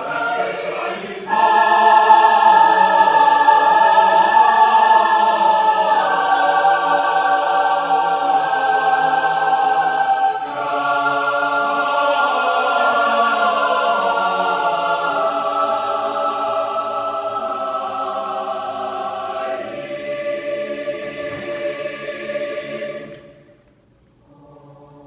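A choir singing long, held chords that shift several times, then stop near the end.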